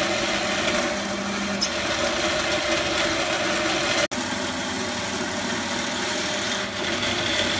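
Electric sectional drain-cleaning machine running in forward, its clutch gripping and spinning a 30 mm flexible cable as it is fed into a blocked pipe: a steady motor and cable running sound, with a very brief dropout about four seconds in.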